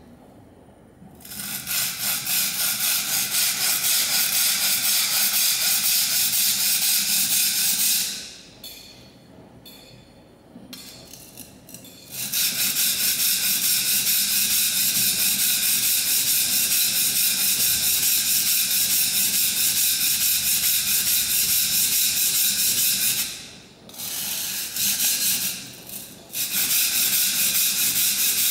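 Steel plane iron rubbed quickly back and forth on an oiled Norton Crystolon silicon-carbide oil stone, making an even, rasping hiss of repeated strokes as the bevel is sharpened freehand. The strokes stop for a few seconds about eight seconds in, and again briefly near the end, with a couple of short strokes in between.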